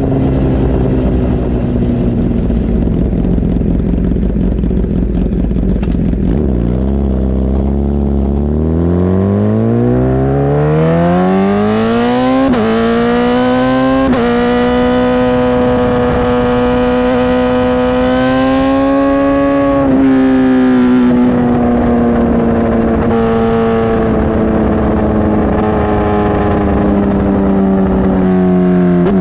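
Kawasaki ZX10R inline-four running through a Brocks titanium CT megaphone exhaust under way. Its pitch sits low at first, then climbs steadily under acceleration for several seconds, steps up twice, holds high, and slowly falls away near the end.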